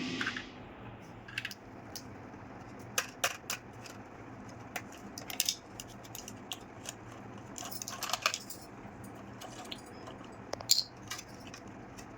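Small toy kitchen pieces being handled, clicking and tapping against each other at irregular moments, a few sharper clinks among them.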